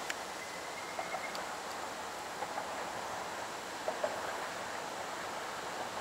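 Steady outdoor background hiss, with a few faint soft ticks, mostly in pairs about a second apart.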